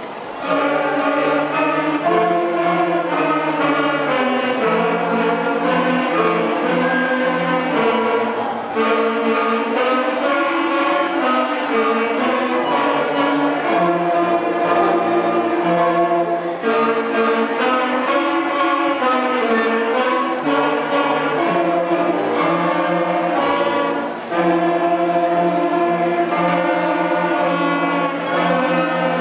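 Sixth-grade concert band of flutes, saxophones and brass playing a piece in held chords with a moving melody, starting about half a second in.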